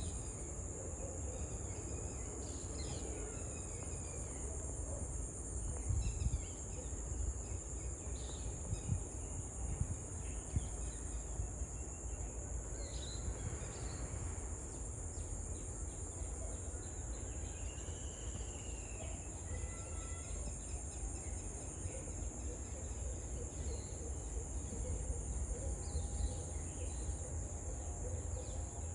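Steady, high-pitched insect chorus trilling without a break, with a few short bird chirps scattered through and a low rumble underneath.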